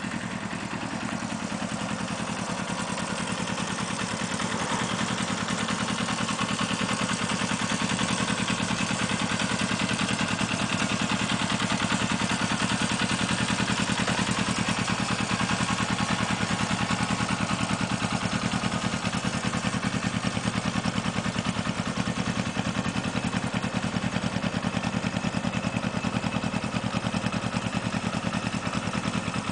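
1982 Suzuki GSX250's parallel-twin four-stroke engine idling steadily.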